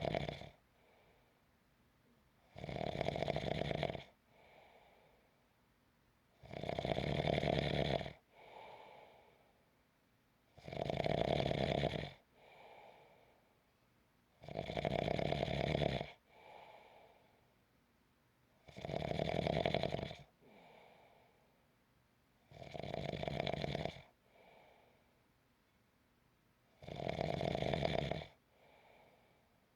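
Snoring in a steady rhythm: a loud snore about every four seconds, seven in all, each followed by a softer, shorter breath.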